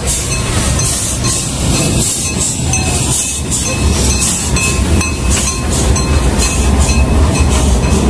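Miniature tourist train running past, a steady low rumble with a regular clicking over it.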